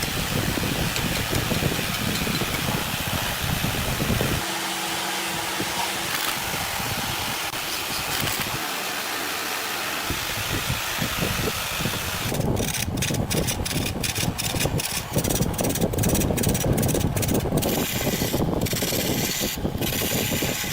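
Wood lathe running while a turning tool cuts the spinning bamboo, a steady hissing scrape. In the second half the scraping breaks into many short, quick strokes.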